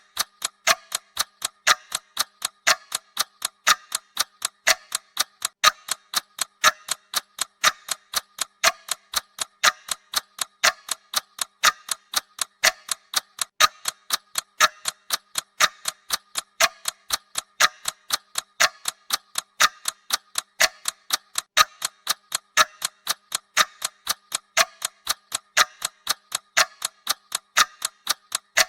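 Countdown timer's clock-ticking sound effect, sharp even ticks at about two a second.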